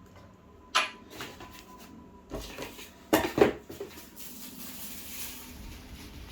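Hard plastic and metal parts of a cordless drill kit clattering as they are handled: a few sharp knocks, the loudest a double knock about three seconds in, then steady rustling.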